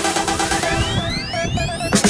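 Background electronic dance music with a steady beat and repeating synth notes, a rising sweep climbing steadily in pitch from about half a second in to the end.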